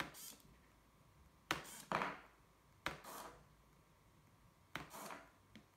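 Four sharp mouse clicks, each followed a fraction of a second later by a short whir of a small hobby servo swinging. Each click toggles the servo output over a 4G LTE link to the Pixhawk, so the gap between click and whir is the control latency.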